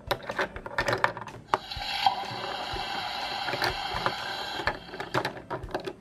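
Small plastic toy dishes and utensils clicking and knocking against a plastic toy sink, with a steady hiss lasting about three seconds in the middle.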